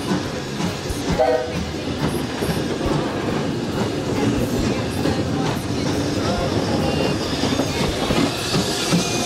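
Steam locomotive moving slowly past at close range: a steady rumble with irregular clanks and knocks from its wheels and motion on the rails.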